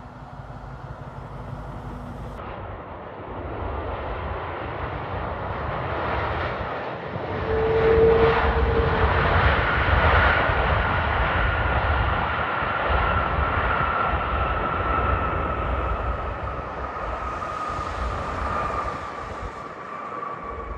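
Airliner passing close by. Its engine noise swells to a peak about eight seconds in, then eases off, with a high whine that slowly falls in pitch as the aircraft moves away.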